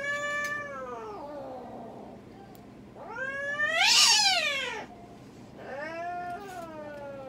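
Domestic cat yowling in distress while held down for treatment: three long, drawn-out calls. The middle one, about three seconds in, is the loudest, rising and then falling in pitch.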